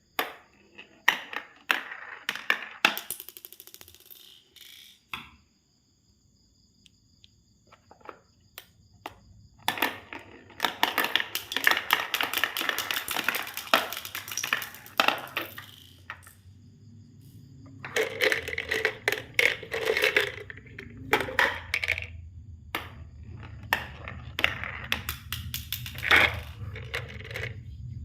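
Marbles clicking and rattling down a marble run in several bursts of dense clacks, with short pauses between runs. A low hum sets in during the second half.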